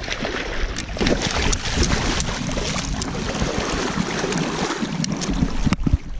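Water splashing and churning as a king salmon (chinook) thrashes in a landing net at the river's surface, over a steady rush of water noise. It breaks off abruptly near the end.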